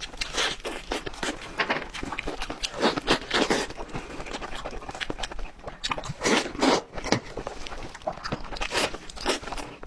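Close-miked eating: irregular crunchy bites and chewing of crisp food.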